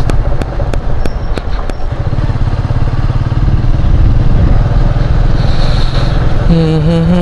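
Vehicle riding along a rough road, heard from on board: a loud, steady low rumble of engine and road noise, with sharp clatters from bumps in the first couple of seconds. Near the end a steady pitched tone, like chanting, comes in.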